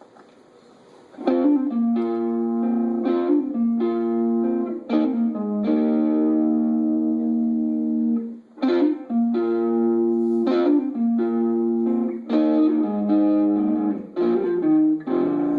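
Guitar playing a picked intro of ringing notes and chords, entering about a second in.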